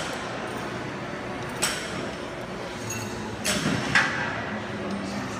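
Two sharp metal clinks from a cable machine during one-arm cable curls, about two seconds apart, over the steady hubbub of a busy gym.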